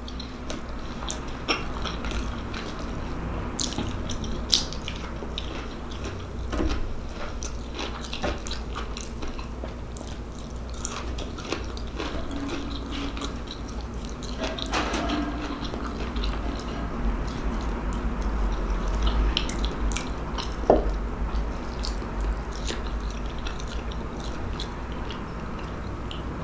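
A person chewing and eating soft food (meatloaf, mashed potatoes and steamed vegetables) close to the microphone, with small mouth sounds and scattered short clicks over a low steady hum.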